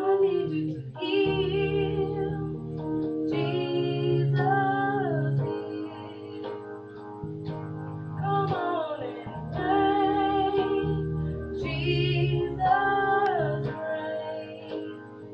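Gospel group singing with instrumental backing: phrases of held and gliding notes over sustained chords and a bass line.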